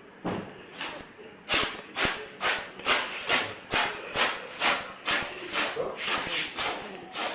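A cat sneezing over and over in a long fit: about a dozen sharp, hissy sneezes, roughly two a second.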